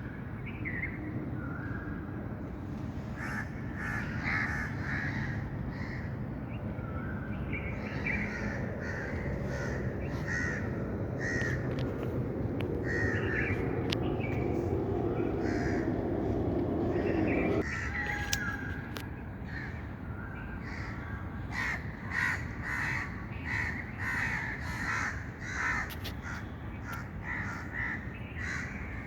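Birds calling over and over in short, harsh notes, coming quickly in the second half. A steady low background noise under them stops suddenly about 18 seconds in.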